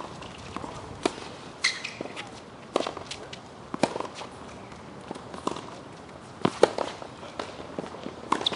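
Tennis rally: sharp pops of the ball struck by the racquets, roughly every second or so, the loudest about two-thirds of the way through, with softer knocks between.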